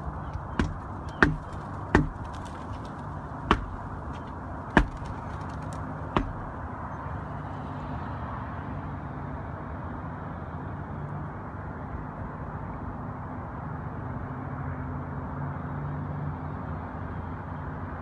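Six sharp knocks or claps, irregularly spaced over the first six seconds, then a steady background rush with a low hum.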